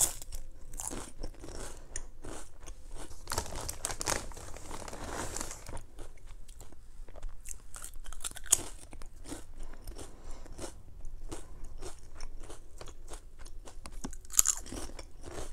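Close-miked crunching and chewing of potato chips: irregular sharp crunches as chips are bitten and chewed, with a fresh bite about eight seconds in.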